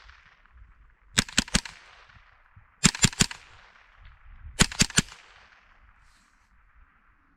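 Three quick bursts of three shots each from a Smith & Wesson M&P15-22 .22 LR semi-automatic rifle, the bursts about a second and a half apart. Each burst is followed by an echo that fades out.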